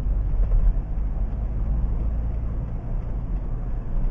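Steady low rumble of a car driving along a paved road, heard from inside the cabin: engine and road noise.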